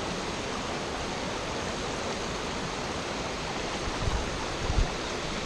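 Steady rushing of a mountain waterfall and a stream running over rocks. Near the end a few low thumps hit the microphone.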